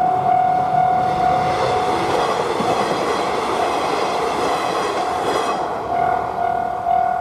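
Japanese level crossing warning bell ringing its repeating "kan-kan" tone, about two strokes a second. About a second and a half in, a train passes over the crossing and its rail noise drowns the bell for about four seconds. The bell can be heard again near the end.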